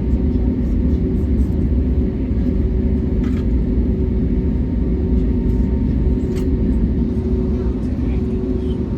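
Airbus A321neo cabin noise from a window seat: a steady, loud rumble of engines and airflow with a constant hum running through it.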